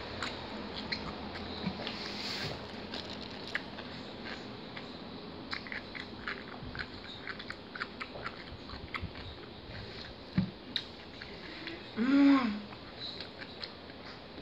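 A person chewing food with the mouth close to the microphone: small wet clicks and smacks throughout. Near the end comes a short hum that rises and falls in pitch.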